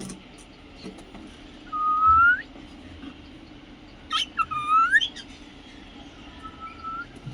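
Cockatiel whistling: one loud rising whistle about two seconds in, then a quick run of rising whistled notes with small clicks around the fifth second, and a fainter, level whistle near the end.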